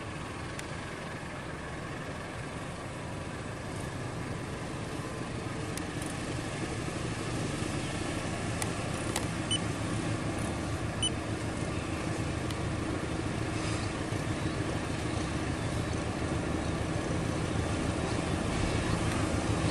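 Diesel locomotive hauling a passenger train, its engine running with a steady drone that grows gradually louder as it approaches.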